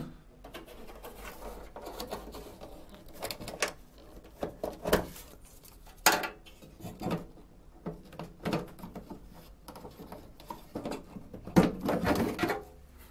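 Metal parts of a computer chassis being handled: irregular clicks, knocks and rattles as the front control panel and its flat flex cable are worked loose, with a busier burst of knocking near the end.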